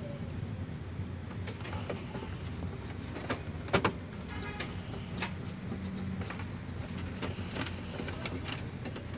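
Long screwdriver working a screw in a plastic printer chassis: scattered small clicks and scrapes of metal on screw and plastic, with a sharp double click about four seconds in, over a steady low hum.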